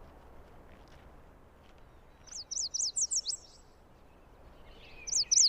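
Songbird singing: a quick run of about eight high, sharply falling notes about two seconds in, and the same phrase starting again near the end, over faint background hiss.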